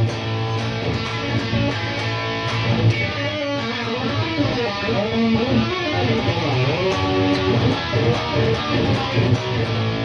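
Amplified electric guitar playing a busy picked riff of quickly changing notes, with a low note ringing steadily underneath.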